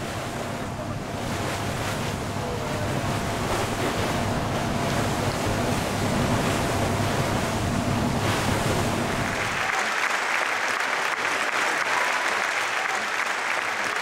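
Boat engine running low and steady under wind and water rushing past the hull, heard from on board. About nine and a half seconds in it cuts to a crowd applauding.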